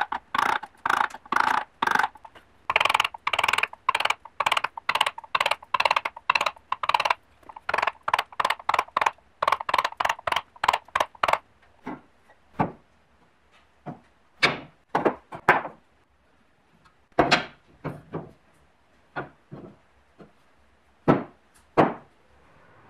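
Carving gouge being driven into hard ash wood, giving sharp wooden knocks at about three a second. About halfway through, the knocks stop, and scattered single knocks of wooden boards being handled and set down on a workbench follow.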